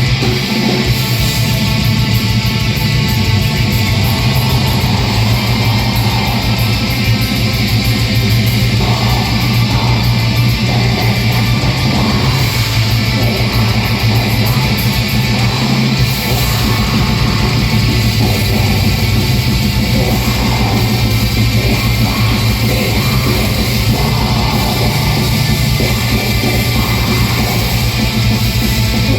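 Live black metal band playing at full volume: a steady, dense wall of distorted electric guitar with drums and bass, recorded on a phone in the audience.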